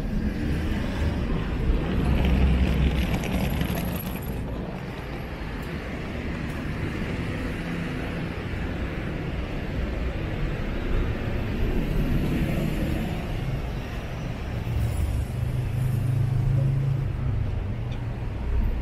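City street traffic: cars passing at intervals over a steady background rumble, with swells as vehicles go by about two seconds in, around the middle, and again near the end.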